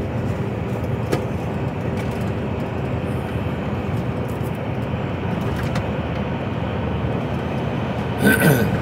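Steady diesel engine and road drone inside an HGV lorry cab at motorway speed, with faint irregular knocks from a bunch of keys on a key ring banging against the dashboard. A brief louder sound with a sliding pitch comes near the end.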